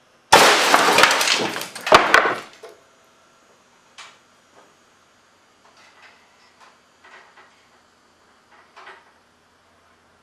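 A large air cannon (a fire-extinguisher tank dumping 500 psi air through a spring-opened ball valve into an 8-foot, 25 mm barrel) fires a heavy lead slug. It makes a sudden loud blast and rush of air lasting about two seconds, with a sharp crack near the end. A few faint clicks and rattles follow.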